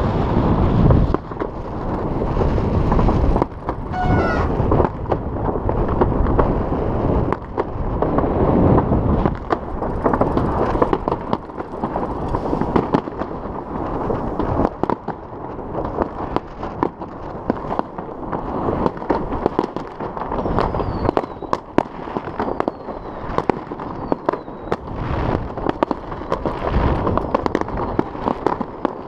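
Fireworks salvos going off across the city: many sharp pops and bangs, near and far, over a steady low rumble. A rising whistle comes about four seconds in, and a few short falling whistles later on.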